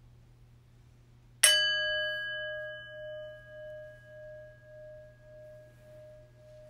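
A bell struck once about a second and a half in, its clear tone ringing on and slowly fading with a pulsing waver. It is rung for a pause of silent prayer.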